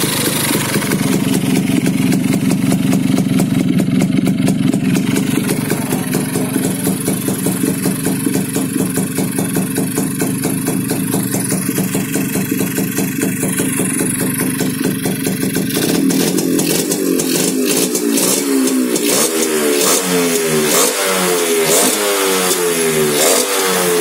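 Kawasaki HD-III's air-cooled single-cylinder two-stroke engine, in standard bore, running steadily. From about two-thirds through, its pitch rises and falls over and over as it is revved in quick blips.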